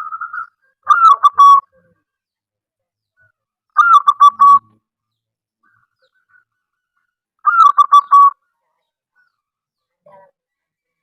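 Zebra dove (perkutut) singing: three loud cooing phrases about three and a half seconds apart, each a falling note run into a quick string of short coos, with a softer phrase at the very start.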